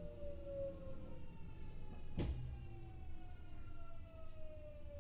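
Kintetsu 6400-series electric train running, heard from inside the car: the VVVF inverter and traction motors whine in falling tones as the train slows, over a steady low rumble of wheels on rail. A single sharp knock comes about two seconds in.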